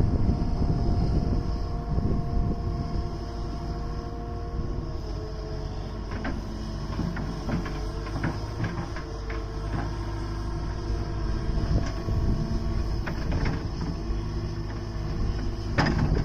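Hydraulic excavator working: a steady engine drone with a whine that shifts in pitch now and then, and scattered knocks and clanks, loudest near the end.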